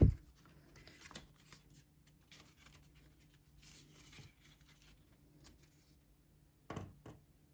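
Faint handling noise of a paper-card craft lamp: light rustles and small ticks of card over a low room hum, with a louder brief rustle or knock about seven seconds in.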